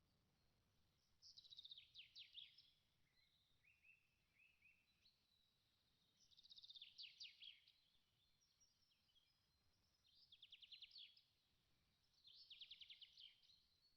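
Faint birdsong: a small bird sings the same quick trill of high, falling notes four times, with softer chirps between.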